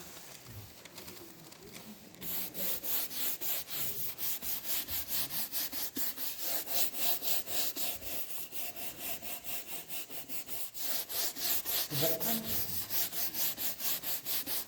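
Rapid back-and-forth hand rubbing or sanding strokes, about four or five a second, starting about two seconds in.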